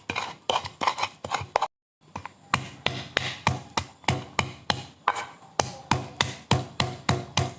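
Rhythmic knocks of food being chopped, about three strikes a second, with a brief cut to silence about two seconds in.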